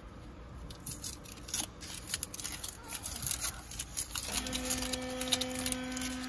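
Microfiber towel wiping over a glossy carbon-fibre console trim, a series of quick swishing rubbing strokes. About four seconds in, a steady low hum with overtones starts and holds under the wiping.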